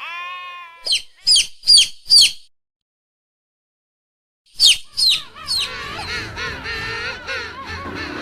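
Animal calls: a short pitched bleat-like call, then four sharp, high, falling chirps about two seconds in a row; after a gap of about two seconds, more chirps that run into a long wavering call.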